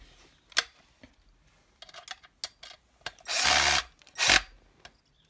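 Metabo 12 V cordless drill-driver driving the dust shroud's retaining screw tight: a sharp click about half a second in, then the motor runs for nearly a second and gives one short second burst.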